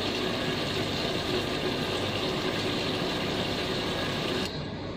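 Steady whirring of an electric fan or motor with a faint steady hum, cutting off abruptly near the end.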